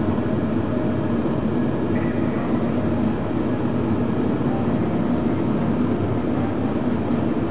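Steady low rumble of background room noise, even and unbroken, with no distinct knocks or clicks.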